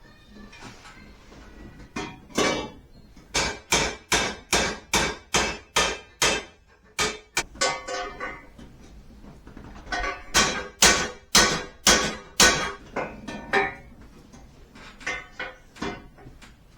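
Hammer beating on an exhaust header in two long runs of blows, about two a second, each blow ringing briefly off the metal, with a few lighter taps near the end. The header is being dented to clear the control arm.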